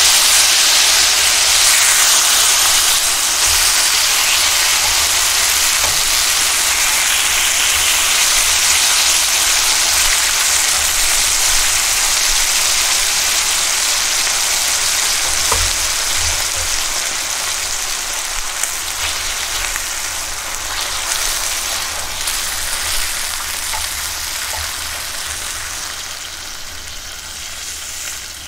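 Thin slices of wagyu beef sizzling in beef fat with sugar and soy sauce in an iron wok. It is a loud, steady sizzle that slowly dies down toward the end. There is one light click about halfway.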